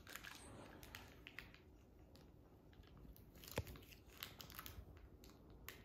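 Faint, scattered small clicks and crackles of a plastic DNA swab sample tube being handled, with one sharper click about three and a half seconds in.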